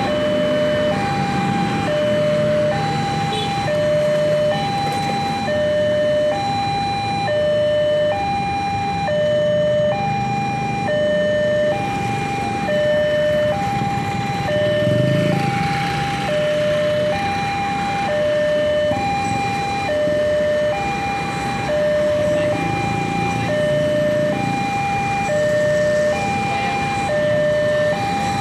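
Electronic railway level-crossing alarm sounding two alternating tones, high and low, swapping about once a second, the signal that a train is approaching. Motorbike and car traffic runs underneath.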